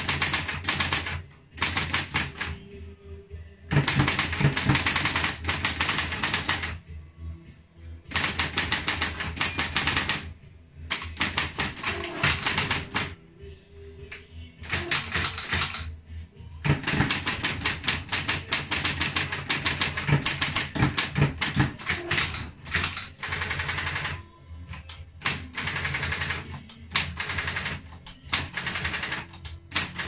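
A 1963 Triumph Electric 31 electromechanical typewriter being typed on: fast runs of sharp key-and-typebar clacks, broken by short pauses every few seconds.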